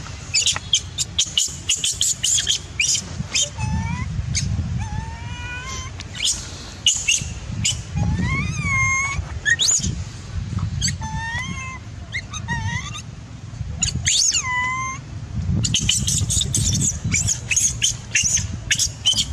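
Baby macaque giving distress calls: repeated short, high-pitched squeals that rise and fall in pitch, with rapid shrill chirps in between that come thickest in the first few seconds and again near the end.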